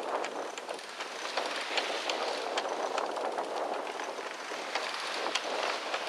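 Sailboat's headsail furling line being hauled in by hand, with many irregular clicks and rattles over a steady rush of water and wind.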